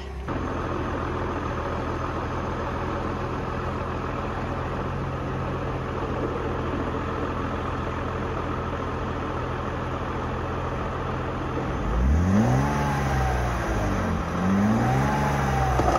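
A vehicle engine running steadily, then revving up and down twice near the end, its pitch rising and falling each time.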